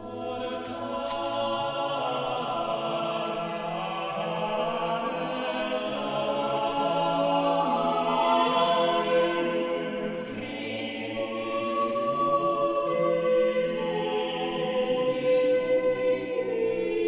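Background music: slow choral music with long, held chords that change gradually.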